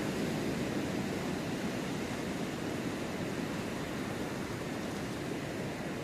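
Steady rushing of ocean surf.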